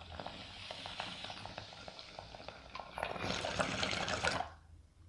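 Glass water bong bubbling as smoke is drawn through it: rapid bubbling that grows louder about three seconds in, then stops abruptly near the end.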